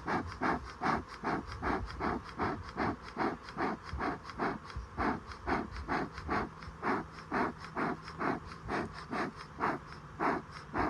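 Beekeeper's smoker bellows pumped over and over, a puff of air about two and a half times a second, to get a smoker that is barely smoking going.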